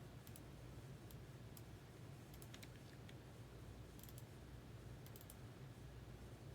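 Faint, irregular clicks, single and in quick small clusters, over a steady low hum.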